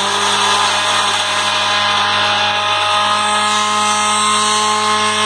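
Electric mixer-grinder running steadily, its small jar grinding roasted chickpeas and poppy seeds into powder. It is switched off right at the end.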